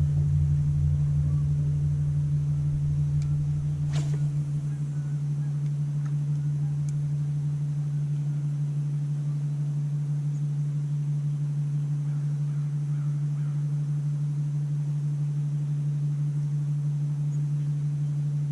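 A steady low-pitched hum, with a lower rumble beneath it that fades out about four or five seconds in, and a single faint click around four seconds.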